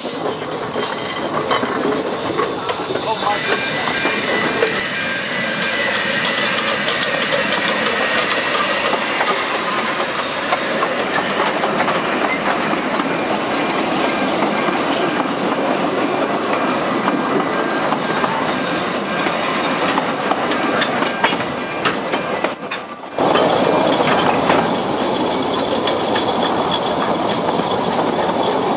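Narrow-gauge steam train pulling out: bursts of steam hiss from the locomotive at first, then the coaches rolling past with their wheels clicking over the rail joints. About 23 seconds in the sound cuts to a louder, steady rushing noise.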